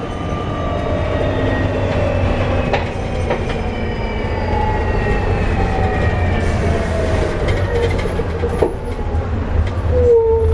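Volvo B7TL double-decker bus under way, heard from inside: engine and road rumble with a drivetrain whine that falls steadily in pitch as the bus slows. A brief squeal comes near the end.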